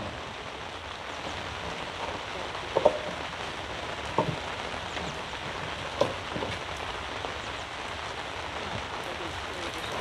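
Steady rain falling on a fabric canopy tent, with three dull knocks from a microphone being handled and adjusted on its stand.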